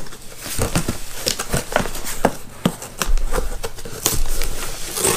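Cardboard shipping box being handled and opened by hand: flaps folding back and cardboard scraping and rustling, with irregular taps and knocks from the handling and a few low thumps a little past the middle.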